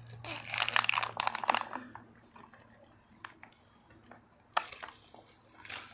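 Plastic water bottle crinkling and clicking as it is squeezed and handled while being chugged. A dense burst of crackles in the first two seconds, then two short crinkles near the end.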